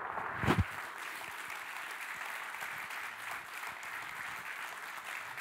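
A congregation applauding steadily. A loud double thump comes about half a second in.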